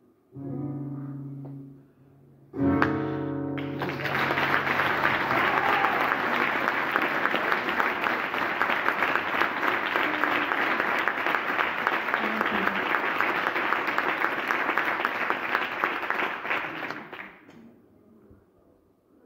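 The last held notes of a live song, then an audience clapping for about fourteen seconds, dying away near the end.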